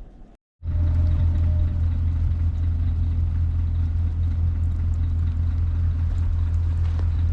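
Vehicle running with a loud, steady low drone, which comes in abruptly after a brief dead gap about half a second in.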